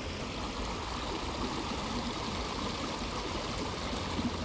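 Steady running and splashing water in a shallow pond basin, an even rushing without breaks.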